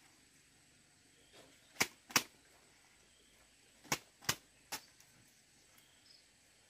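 Five sharp knocks: two close together about two seconds in, two more about four seconds in, and a fainter fifth just after.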